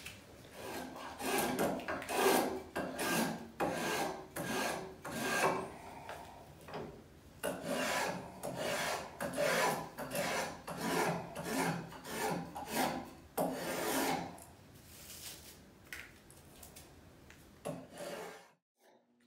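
Bladed hand tool shaving wood in repeated pull strokes, about two a second. There is a short lull about six seconds in, and the strokes stop shortly before the end.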